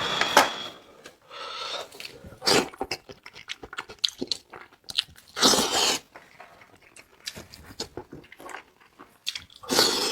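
A person eating close to the microphone: irregular wet chewing smacks and clicks, with a few louder half-second bursts a few seconds apart.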